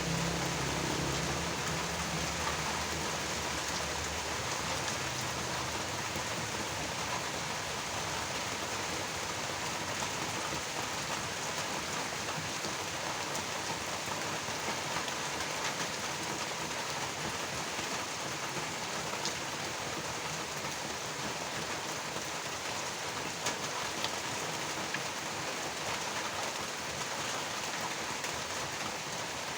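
Steady rain falling and pattering on surfaces, with a low rumble dying away over the first couple of seconds and a few sharper drop hits later on.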